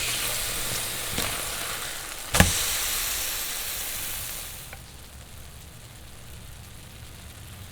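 Burgers sizzling on a grill, with a sharp click about two seconds in. The sizzle drops away a little before five seconds in.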